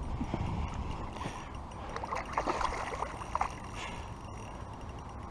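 Water splashing in a few short bursts about two to three and a half seconds in, over a steady low rumble: a hooked pike thrashing at the surface during the fight.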